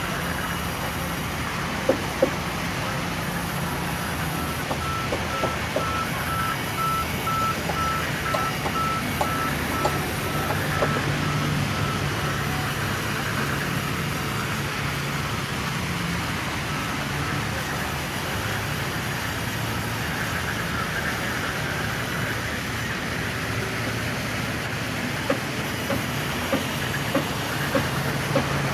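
Large sawmill band saw running steadily while it cuts lengthwise through a log, slicing off a slab, over a low machine hum. A faint high whine holds for several seconds in the first half, and light knocks of wood on the steel table come now and then.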